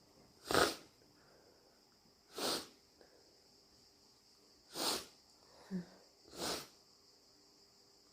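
A person sniffing a wet, runny nose after sneezing: four short, sharp sniffs about two seconds apart, the first the loudest, with a brief low grunt shortly before the last.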